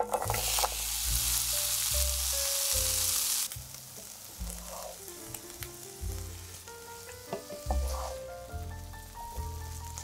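Food-preparation noise over soft background music: a dense crackling rustle for about the first three and a half seconds, then lighter scattered clicks and scrapes.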